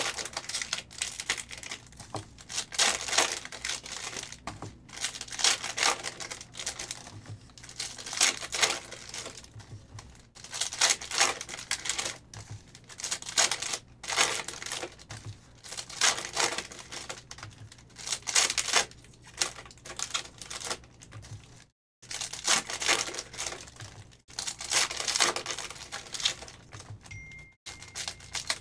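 Foil trading-card pack wrappers crinkling and tearing as packs are ripped open one after another, in repeated bursts every second or two.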